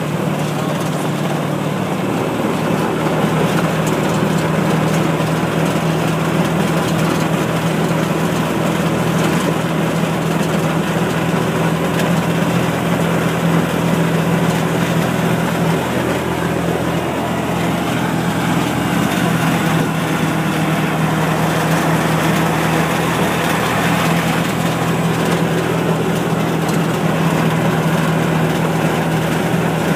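Engine of a small riding farm vehicle running steadily at an even speed, heard from on board as it drives along, a constant low hum with road and mechanical noise over it.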